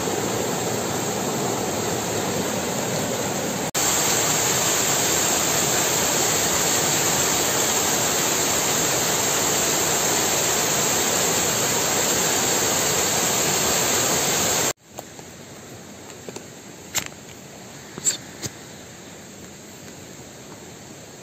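Loud, steady rushing noise that gets louder about four seconds in. Two-thirds of the way through it drops abruptly to a much quieter hiss, with a few sharp clicks.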